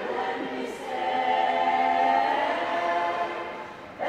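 A choir singing, with a long held chord in the middle that fades away before the voices come in again with a new phrase near the end.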